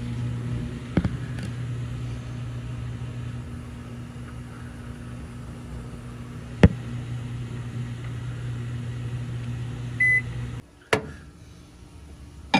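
Microwave oven running with a steady low hum, with two sharp clicks during the run, the second the louder. About ten seconds in it gives one short beep and the hum stops.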